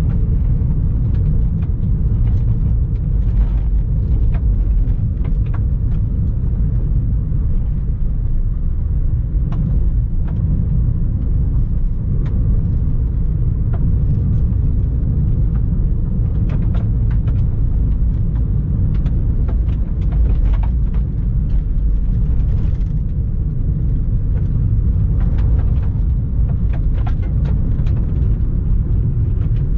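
A car driving along a gravel stage road: a steady low rumble of road and tyre noise, with scattered sharp clicks throughout.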